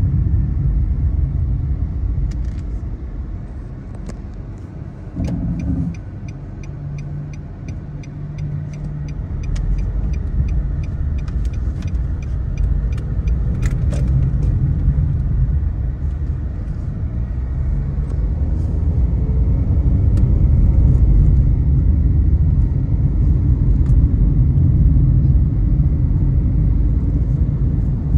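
Car driving on a road: low engine and tyre rumble that eases as the car slows for a few seconds, with a rapid, regular ticking partway through. The engine pitch then climbs as the car picks up speed again.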